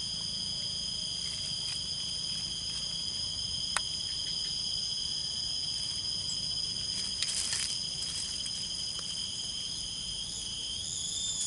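Insects chirring in a steady outdoor chorus, holding several high pitches without a break, over a low background hum. A couple of faint clicks from handling the fishing rod and line come about four and seven seconds in.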